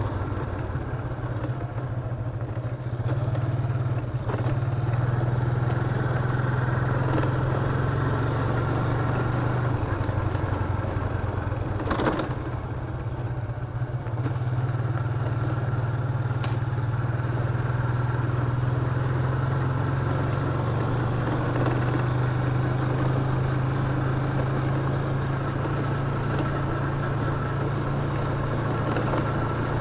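Small motorcycle engine running steadily under way on a gravel road, with the hiss and crunch of riding over it. The engine eases off for a few seconds about a third of the way through, with a single knock, then picks up again.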